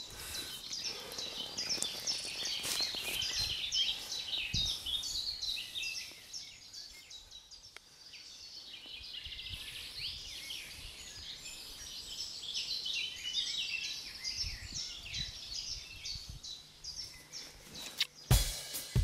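Birds singing: many short, high chirps and trills overlapping without a break, with a few soft low thumps.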